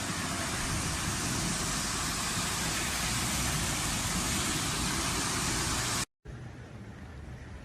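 Steady hiss of a heavy rainstorm, mixed with passing car noise. It breaks off abruptly about six seconds in, and a quieter steady hiss follows.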